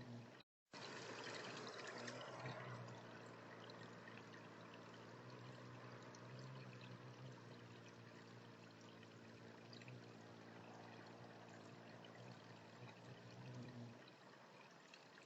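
Faint, steady running or trickling water with a low hum beneath it. The sound cuts out completely for a moment about half a second in.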